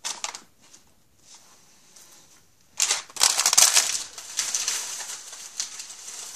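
A few light taps at the start, then about three seconds in a loud burst of crinkling plastic packaging lasting about a second and a half, easing to lighter rustling.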